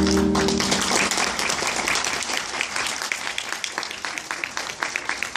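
Audience applauding. The last chord of the recorded music dies away in the first half second.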